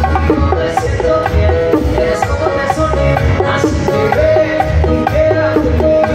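Live band music at full volume, with a pulsing bass line and held melodic notes, and bongos struck by hand in quick, dry hits over the beat.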